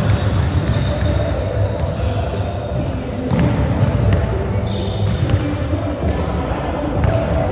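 Basketball bouncing on a hardwood gym floor as it is dribbled, with the thuds echoing in the hall and brief high squeaks of sneakers on the floor.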